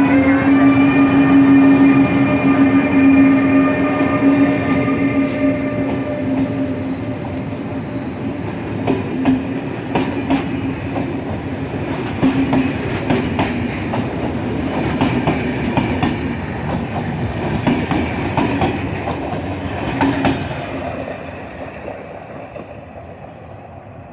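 Siemens Taurus electric locomotive moving off. Its traction converters sing a steady whine in several held pitches, which fade over the first several seconds. From about eight seconds in the wheels click over rail joints, and the whole sound dies away near the end as the locomotive pulls away.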